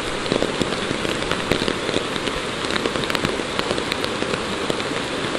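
Rocky creek rushing over stones: a steady hiss of running water flecked with many small splashes.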